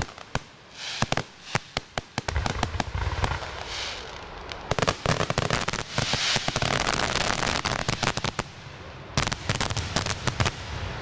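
Aerial firework shells bursting in quick succession. Sharp bangs come thick and fast, and from about two seconds in they run over a steady low rumble of overlapping reports.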